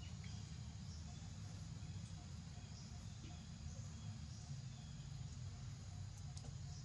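Faint outdoor ambience: a steady low rumble with scattered faint high chirps, and a few light clicks near the end.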